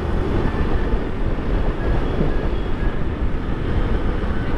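Honda CG 160 Titan motorcycle's single-cylinder four-stroke engine running steadily while cruising at about 60 km/h, mixed with a dense rush of wind and road noise.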